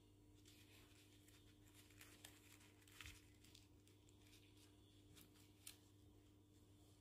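Near silence: faint rustles and clicks of paper and cardboard being handled for a craft, the sharpest about three seconds in and near the end, over a low steady hum.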